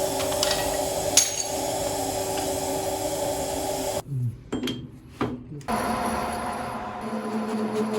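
Workshop machining noise from work on a steel log-splitter screw cone: a steady cutting or grinding sound that stops suddenly about four seconds in. A few knocks and clicks follow, then another steady machine noise from about six seconds on.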